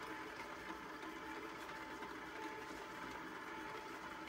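Electric stand mixer running steadily, its motor giving an even hum with a thin whine as the beater turns through dry bath bomb powder.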